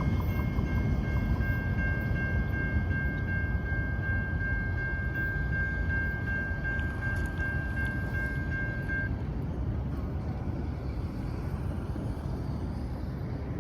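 Freight train cars rolling past with a steady low rumble that slowly fades. A high ringing tone runs over it and cuts off suddenly about two-thirds of the way through.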